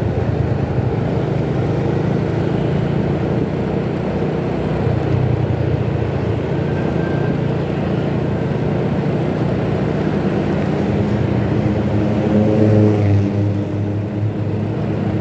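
Steady engine and road noise of riding a motorcycle in traffic, with wind and tyre hiss; the engine sound swells briefly about twelve seconds in.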